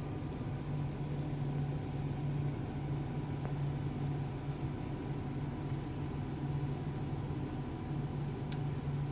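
Orbital welding machine humming steadily during the shielding-gas pre-flow, before the arc strikes. A single faint click near the end.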